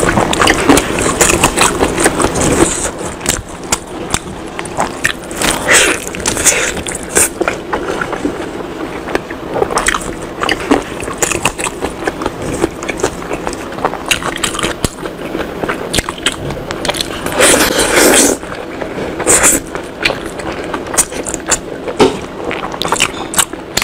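Close-miked eating sounds from someone biting into and chewing pork knuckle and tearing it by hand: irregular sharp clicks and short moist bursts, with no steady rhythm.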